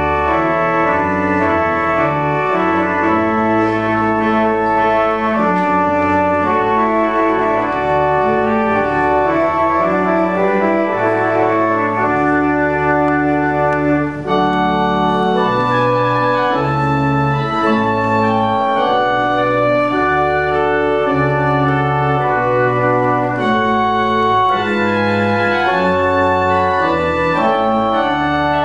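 Church pipe organ playing a wedding processional: sustained chords over a bass line that steps to a new note every second or two.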